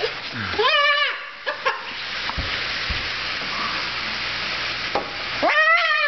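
Umbrella cockatoo giving two harsh squawks, one about a second in and another near the end, each rising and then held, over a steady hiss with a few light taps between.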